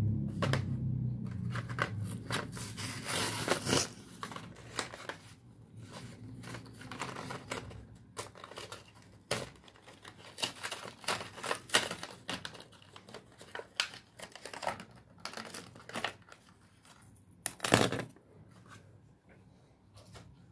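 Packaging crinkling and tearing in irregular bursts of crackles as it is handled and opened by hand, loudest about three and a half seconds in and again near the end.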